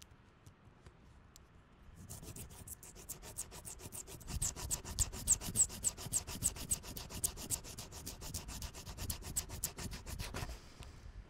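Fingernail scratching back and forth on a varnished wooden bench slat, in quick, even strokes several times a second. It starts about two seconds in and stops shortly before the end.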